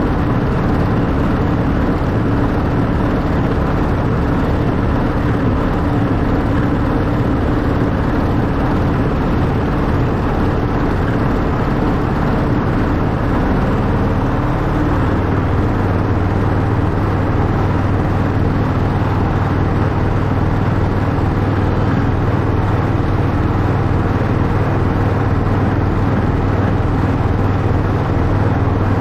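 Miniature Class 91 replica locomotive running along its track, a steady mechanical hum with running noise; the hum's note drops lower about halfway through.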